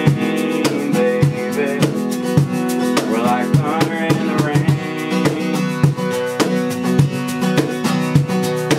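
Acoustic guitar strumming chords in a steady rhythm with hand percussion keeping the beat: the instrumental close of an acoustic country song, with no vocal.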